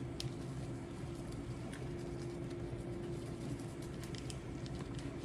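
Faint scattered scratches of a chlorhexidine wipe being scrubbed against a plastic hemodialysis catheter, over a steady machine hum with a faint steady tone.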